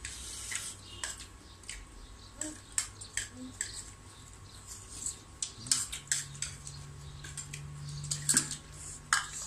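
Metal spoons clinking and scraping against bowls during a meal, in scattered irregular clicks. A low steady hum runs underneath from about halfway through until just before the end.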